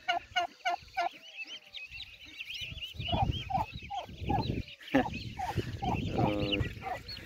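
Young domestic ducks calling as they walk: a steady chorus of short high peeps over lower short calls repeated every fraction of a second.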